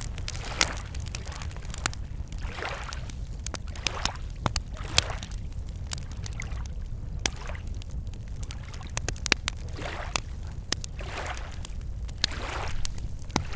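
Wood campfire crackling with frequent sharp pops, over small lake waves lapping at the shore in soft swells every second or two.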